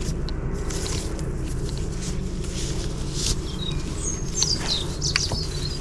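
Rustling and light clicks of nylon strap webbing being knotted through a kayak's carry handle on a roof bar, over a steady low hum. A bird chirps a few times in the second half.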